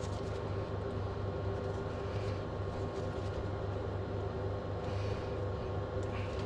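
Steady mechanical hum from a running machine, with a few faint small scrapes and clicks of parts being handled.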